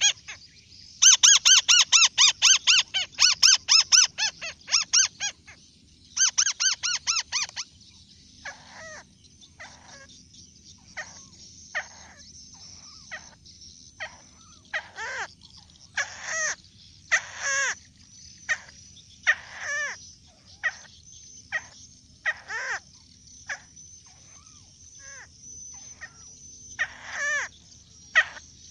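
Bird calling: a fast, rapid run of sharp high calls in the first few seconds, then single short calls that fall in pitch, about one a second.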